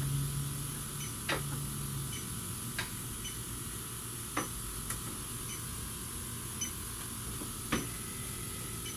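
Electronic refrigerant leak detector ticking slowly, about once a second, at its idle rate, with four louder sharp clicks, as it is probed around an A/C pressure switch without finding a leak. A low hum fades out about two seconds in.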